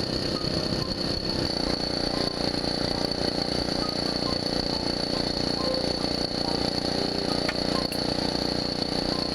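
The small engine of a motorised bicycle running steadily, its sound filling in about one and a half seconds in.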